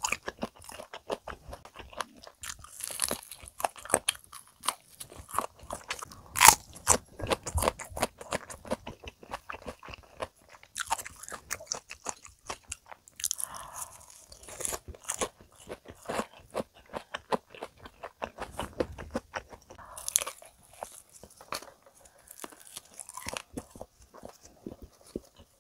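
Close-miked crunching and chewing of crispy deep-fried chicken and menbosha (fried shrimp toast): a dense run of crackling bites and chews, the sharpest crunch about six and a half seconds in.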